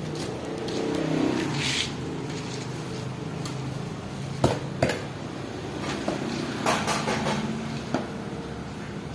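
Masonry work on concrete and hollow blocks: scraping of tools with two sharp knocks about half a second apart near the middle, over a steady low hum.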